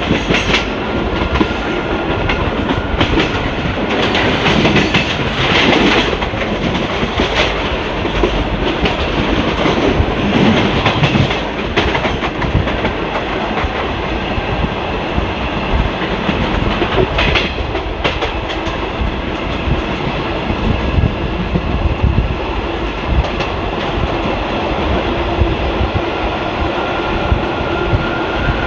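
ICF passenger coach running on the track, heard from inside the coach: a steady rumble of wheels on rail with irregular clickety-clack knocks as the wheels cross rail joints and points.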